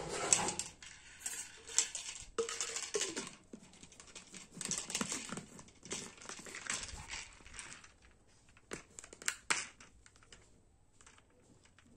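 Handling noise from a Fitkit plastic shaker bottle: irregular rustling, scraping and clicking of the bottle, its lid and mixer rod, with a few sharp plastic clicks a little before the end as the lid is fitted back on.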